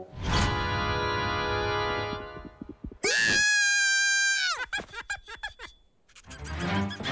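Cartoon soundtrack: a bright held music sting, then a loud, high-pitched held scream from a character about three seconds in that drops away at the end, followed by a run of quick clicks.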